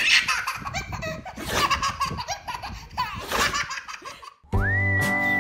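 Baby laughing in repeated bursts of belly laughter, which stop abruptly about four seconds in. Background music with a whistled melody starts near the end.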